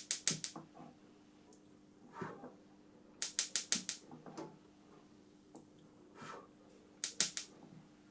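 Electronic gas-grill spark igniter snapping sparks across a pair of electrodes at a propane jet. Three rapid bursts of sharp clicks of about four to six snaps each, a few seconds apart, with fainter soft puffs in between.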